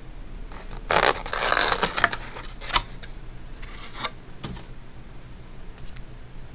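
Styrofoam takeout clamshell being unlatched and opened, the foam scraping for about a second, then a sharp snap and a few lighter scrapes.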